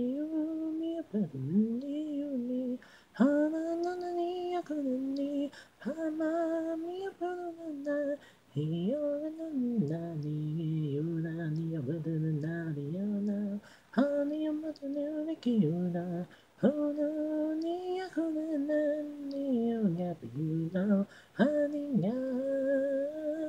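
Female voice singing a Japanese idol song a cappella: an isolated vocal track with no instruments, the phrases broken by short pauses every few seconds.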